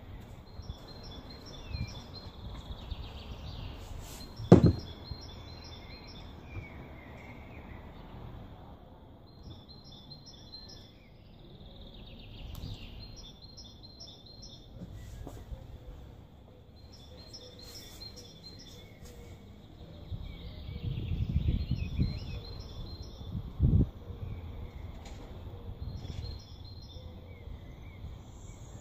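Small birds chirping in short repeated bursts over handling noise at a table. A single sharp snap about four and a half seconds in is the loudest sound, and a dull thump comes later, about two-thirds of the way through.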